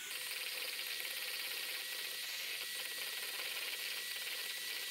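Electric hand mixer running steadily, its beaters whisking a foamy marshmallow mixture in a stainless steel bowl; an even whirring with a faint high tone, in the long whisk toward stiff peaks.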